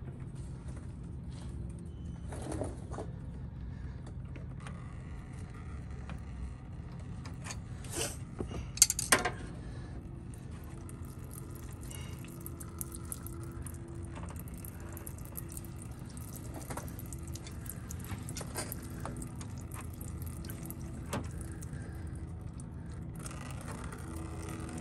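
Pliers clinking against the radiator's plastic drain petcock and nearby fittings, with a cluster of sharp clinks a little before halfway. Coolant trickles from the cracked-open petcock into a drain pan over a steady low hum.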